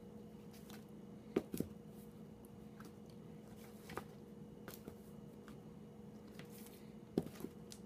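Shrink-wrapped vinyl LP jackets being tipped forward one by one by hand: a few light taps and plastic rustles, over a faint steady hum.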